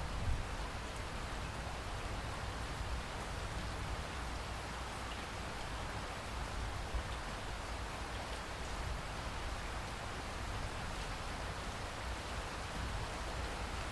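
Steady rain falling, an even hiss of drops with a low rumble underneath and a few slightly louder spatters.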